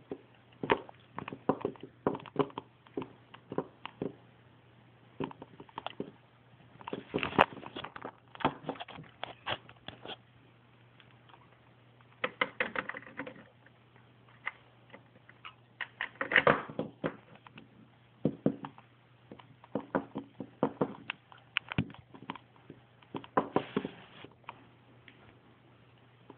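Small plastic toy figures being handled and set down: irregular clicks and taps that come in bunches with short pauses between, over a faint steady hum.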